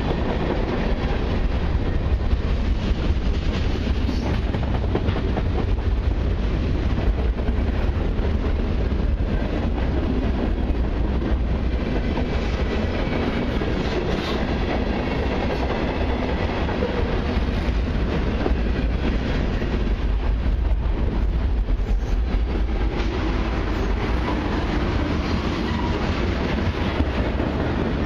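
Freight cars of a long mixed train (covered hoppers, a lumber-loaded flatcar, tank cars) rolling past close by: a steady, dense rumble and clatter of steel wheels on the rails.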